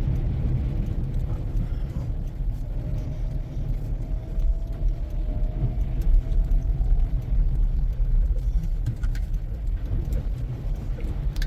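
Steady low rumble of a car driving through snow, heard from inside the cabin. A faint tone rises slowly in the middle for a few seconds.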